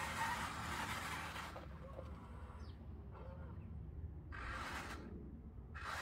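Small electric drive motor of a Huina RC wheel loader whining in short spurts as the toy drives and turns: it runs for about the first second and a half, then twice more near the end. A few faint bird chirps come in the gap between.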